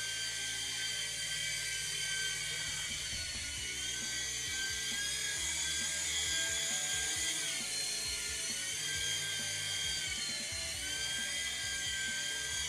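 Small 3.5-channel toy RC helicopter's electric motors and rotors whining steadily in a hover, a high-pitched hum. The pitch dips briefly and comes back up twice, once a little past halfway and again near the end.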